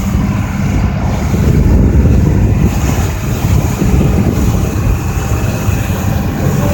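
Small harbour ferry's diesel engine running steadily, a loud low rumble with a steady hum.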